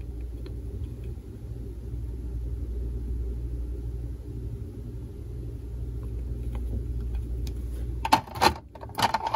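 Steady low background hum. Near the end come a few sharp clicks and knocks of hard plastic coin slabs being set down on the table and picked up.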